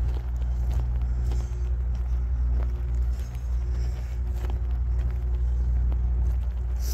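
A steady low rumble, with faint footsteps crunching on the gravel ballast of a railroad track.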